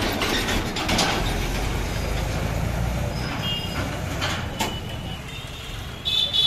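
Mahindra 275 DI tractor's diesel engine running as it passes in street traffic: a steady low rumble, loudest in the first half, with a few knocks and clicks over it. A louder high-pitched sound breaks in near the end.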